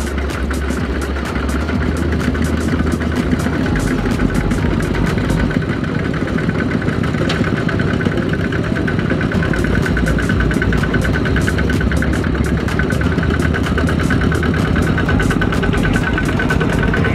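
Single-cylinder diesel engine of a two-wheel walking tractor, a Kubota RT120, running steadily with a rapid, even chugging as it pulls a trailer across a rice field.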